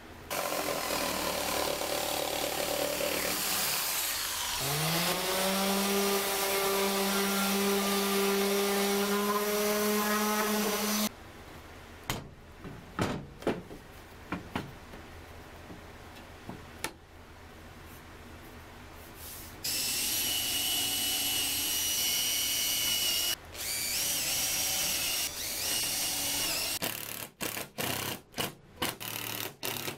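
Power tool motors running: a loud motor runs for about ten seconds, its pitch rising as it spins up partway through, and a second high-whining run lasts a few seconds later on, with light taps and knocks between them. Near the end a Makita 18V cordless driver drives screws in quick short bursts.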